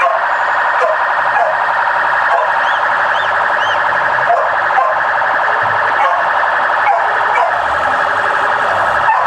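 A siren or alarm sounding in short, repeated rising-and-falling sweeps over a loud, steady din.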